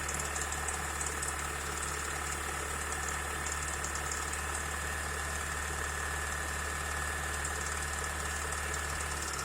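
Lada Oka's two-cylinder engine running with a fast, even mechanical knock or ticking. Adjusting the valves did not cure it; the knock turned out to come from a worn water pump.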